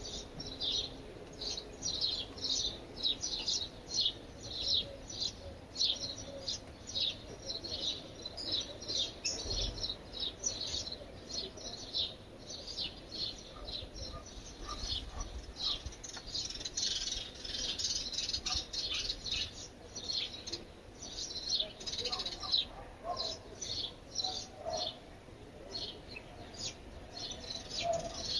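Small birds chirping: a steady run of short, high chirps, a few a second, busiest in the middle, with some lower notes joining near the end.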